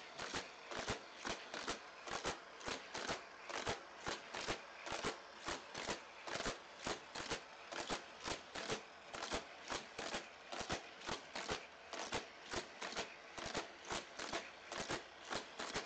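Die-cast Hot Wheels car lapping a Roto Revolution track set, clattering through its loops and motorized boosters in a quick, even run of about three clicks a second.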